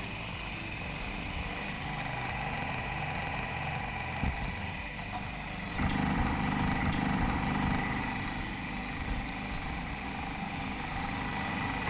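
Electric food processor running steadily, blitzing a thick chickpea and vegetarian-mince patty mixture: a motor hum with a constant whine, growing louder and fuller about six seconds in.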